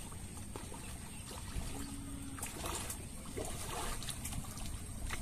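Water splashing and sloshing lightly as people swim and wade through a river, over a steady low rumble, with a few brief splashes in the middle.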